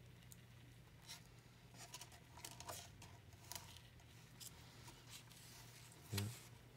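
Near silence over a steady low electrical hum, with faint scattered scratches and clicks: a savannah monitor's claws gripping the wooden ledge of its enclosure as it climbs back in. A brief murmur from a person about six seconds in.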